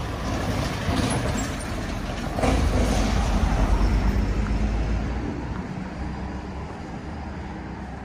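A heavy road vehicle passes close by. Its low engine rumble swells about two and a half seconds in, is loudest around the middle, then fades away.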